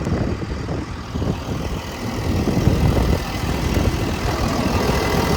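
Volvo EC220E excavator's diesel engine idling with a low rumble.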